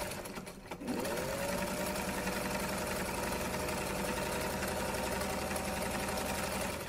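Sewing machine running: it slows, then speeds up again with a rising whine about a second in, runs steadily at speed, and stops near the end.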